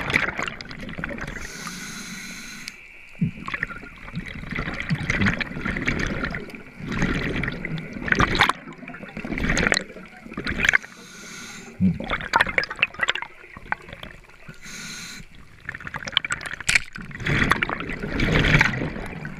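Underwater water noise: water swishing and gurgling past a diver's camera in irregular surges every second or two, with scattered clicks and crackles.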